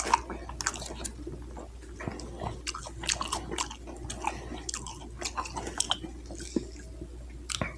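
A person chewing food close to the microphone: irregular wet mouth clicks and smacks, several a second.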